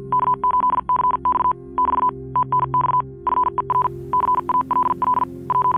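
Morse code: a single high beep keyed on and off in a quick run of dots and dashes, with a brief gap about three seconds in, over soft background music.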